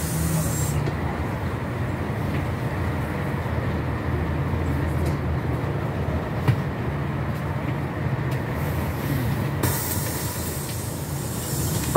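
GAZelle minibus engine idling at a stop, heard from inside the cabin as a steady low rumble. A loud hiss sounds in the first second and again from about ten seconds in.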